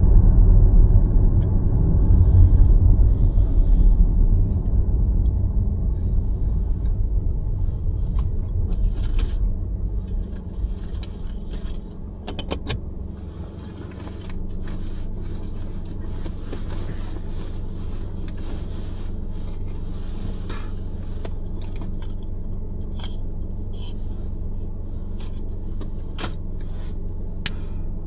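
Car road rumble, heavy and low at first, fading over the first dozen seconds and then settling into a steady low hum. Scattered faint clicks run through it.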